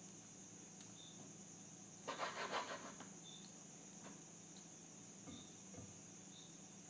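A knife cutting raw liver on a board: faint handling sounds with a short scraping burst about two seconds in, over a steady faint high-pitched whine.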